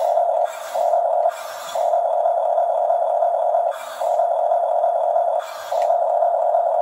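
Toy remote-control bulldozer (Huina 1569) running, its small electric drive giving a steady whir. The whir breaks off four times for a moment, with a short hissy scrape in each gap.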